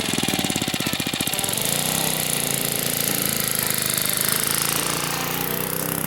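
A 79cc single-cylinder engine driving a homemade motorized bicycle through a belt in first gear, running with fast even firing pulses, then rising in pitch about two seconds in as it speeds up and holding there.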